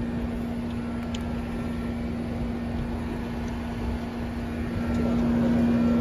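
Outdoor HVAC condensing unit running: a steady electrical hum over low fan and air noise, getting louder about five seconds in.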